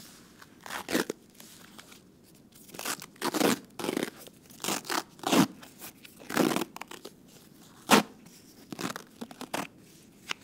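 Gauze bandage being wrapped around a hand and torn: a string of short, irregular rasping tearing sounds, with one sharp louder rip about eight seconds in.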